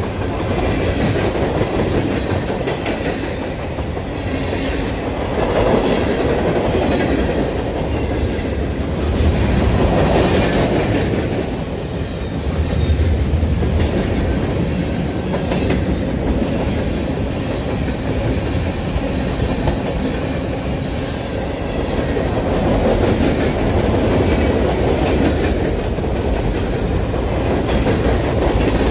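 Freight train of boxcars and covered hoppers rolling past close by: a steady rumble with repeated wheel clicks, swelling and easing slightly as the cars go by.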